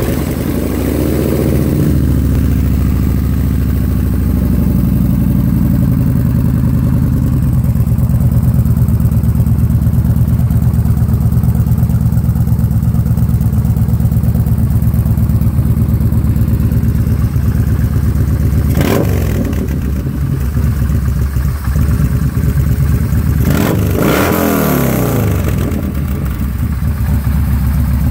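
Yamaha Bolt's air-cooled V-twin running through an XB08 Extremeblaster polished stainless slip-on shorty glass-pack exhaust. It idles just after starting, settling in the first couple of seconds, then is revved twice with quick throttle blips about five seconds apart, the second one longer.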